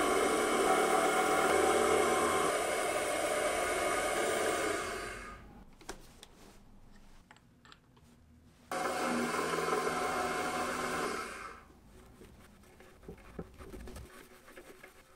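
Small milling machine spindle running as a small bit cuts into an aluminium part, a steady whirring with several tones that dies away about five seconds in. Light clicks and taps follow as the part is handled in the vise. The spindle runs and cuts again from about nine seconds in, dying away near the twelve-second mark.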